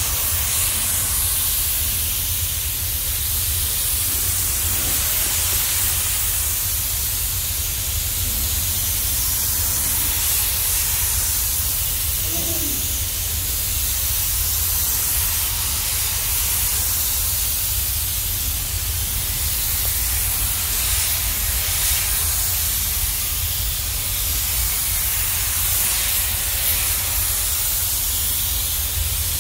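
Gravity-feed paint spray gun hissing steadily as it sprays the finishing topcoat onto a camper van's body, over a steady low rumble.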